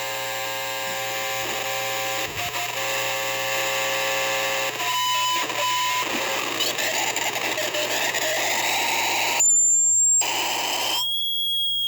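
Harsh noise from a cheap microphone driven through a chain of gain pedals and a delay: a dense wall of distorted hiss with steady feedback tones, changing abruptly several times. About nine seconds in it drops to a single high whine for under a second before the noise returns.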